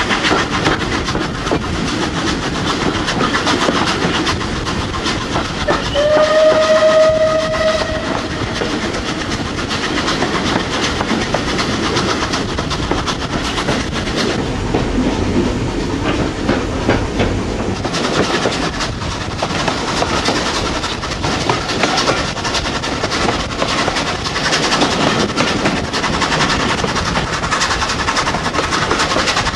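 Steam-hauled train running, heard from one of its carriages: a steady rumble with rail clatter. About six seconds in, a steam locomotive's whistle sounds once for about two seconds.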